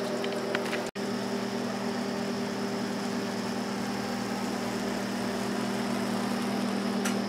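Steady hum of a kitchen appliance fan motor running, a low drone with a faint high whine above it; it drops out for an instant about a second in.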